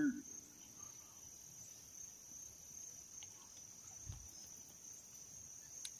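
Faint, steady high-pitched insect trill, one unbroken tone, with a soft low thump about four seconds in.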